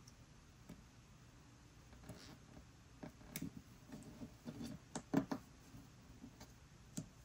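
Faint handling of sticker paper: soft rustling and a few light clicks and taps as a sticker is laid across a paper planner page and pressed down.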